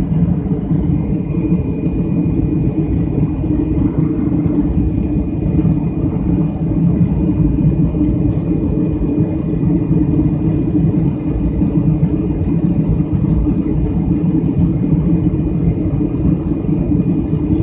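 Passenger aircraft cabin noise in flight: the steady low roar of the engines and airflow heard from inside the cabin, with a faint steady high whine above it.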